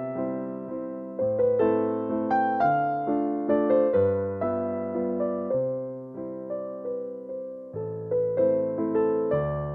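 Background music: a calm piano tune, each note struck and fading, over slower bass notes.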